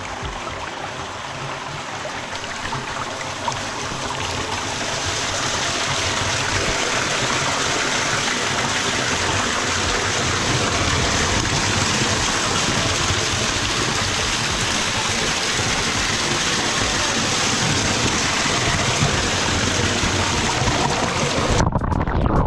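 Creek water running and splashing over rock and down a small waterfall, a steady rushing that grows louder about five seconds in. Near the end the sound turns briefly muffled and dull.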